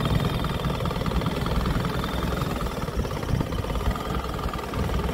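Engine of a small wooden boat running steadily under way, a fast, even throb.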